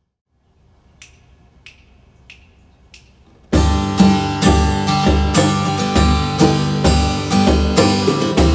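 Four evenly spaced clicks counting in the tempo, then, about three and a half seconds in, a strummed acoustic guitar and hand drums start playing together in a steady rhythm.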